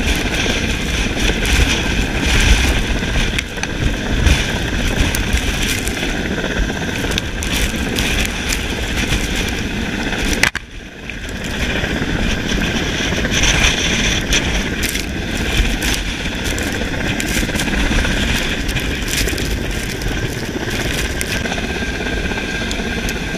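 Helicopter hovering close overhead: steady, loud rotor and engine noise, with the rotor downwash buffeting the microphone. The sound dips briefly about halfway through.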